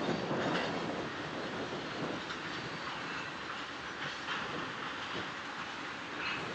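Freight cars of a long mixed train, tank cars and covered hoppers, rolling past: a steady rumble and hiss of steel wheels on rail, with a few sharp wheel clacks spread unevenly through it.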